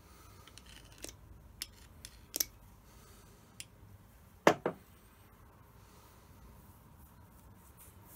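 Small steel lathe gears and parts being handled and set down on a wooden bench: a few light metal clicks, then a louder double knock about four and a half seconds in.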